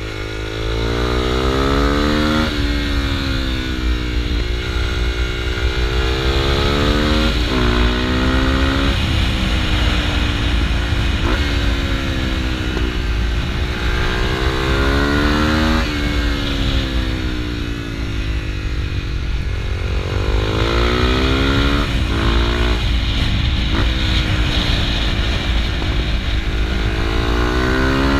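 Honda CRF250L's single-cylinder four-stroke engine under way, its pitch climbing and falling again and again as the throttle is opened and rolled off, with several sudden drops in pitch. A low rush of wind sits under the engine.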